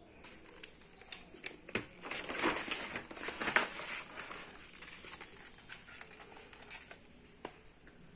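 Rustling and crinkling handling noise, loudest from about two to four seconds in, with a few sharp clicks scattered through it.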